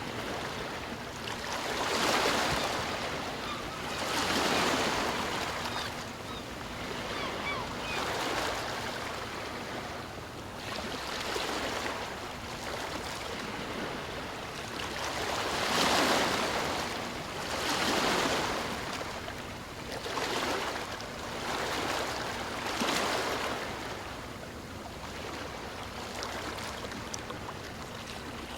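Ocean waves washing in, a steady rush of surf that swells and falls back every two seconds or so.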